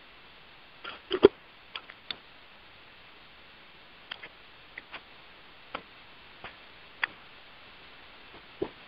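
About a dozen short, irregular clicks and ticks over a steady hiss on a phone conference-call line, the loudest pair about a second in.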